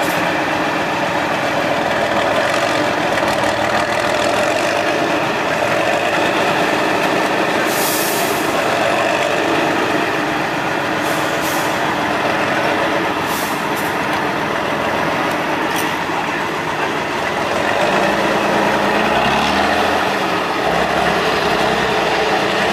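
Tatra 813 8x8 trial truck's diesel engine working under load as the truck crawls through sand, with several short bursts of air hiss. The engine's revs climb in steps near the end.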